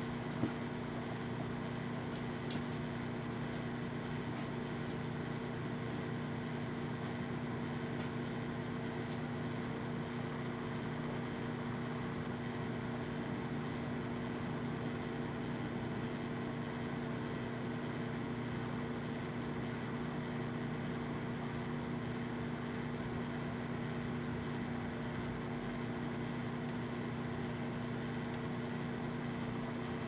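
Microwave oven running with a steady hum, heating a pumpkin jack-o'-lantern, with a couple of faint ticks in the first few seconds.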